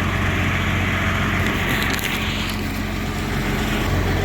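Diesel engine running steadily with a low hum, with a brief crackling rustle about a second and a half in.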